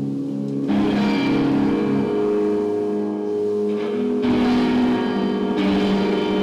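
A live band playing: electric guitar and bass guitar holding sustained notes, with a fuller, brighter wash of the whole band coming in under a second in and swelling again twice later.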